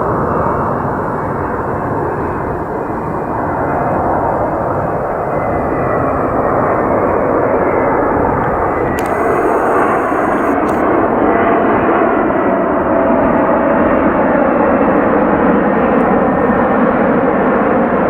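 Jet airliner landing: a loud, steady rush of engine and air noise that grows slightly louder in the second half, with a faint steady whine on top.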